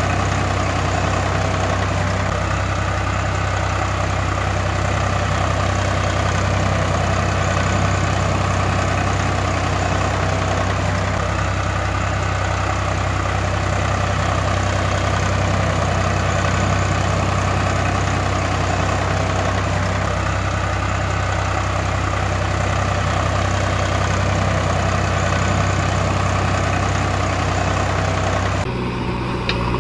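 Tractor-type engine idling steadily with a regular low pulse, an engine sound that the string-pulled toy tractor cannot make itself. The sound shifts abruptly near the end.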